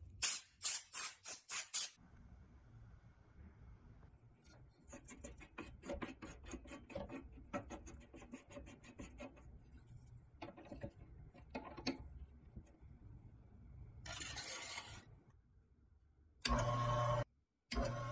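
Hand rubbing strokes, like sanding or filing on a small part: a run of hard strokes at the start, then many quicker, lighter strokes. A short hiss follows. Near the end a motor-driven tool starts with a steady hum, stops briefly and runs again.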